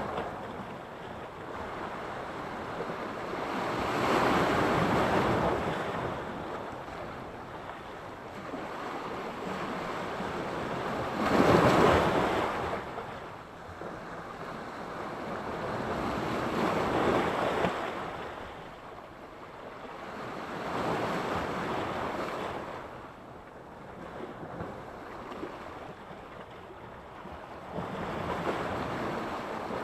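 Sea surf breaking and washing on the shore in slow swells every few seconds, the biggest wave about twelve seconds in.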